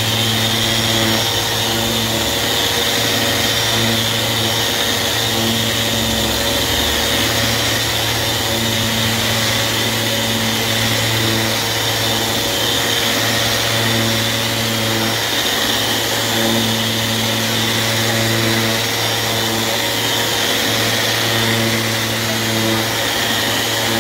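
Festool Rotex RO 150 eccentric (random-orbital) sander running steadily while sanding a clear acrylic block. It gives a continuous motor whine over a low hum, with a few middle tones that come and go as the pad is worked across the surface.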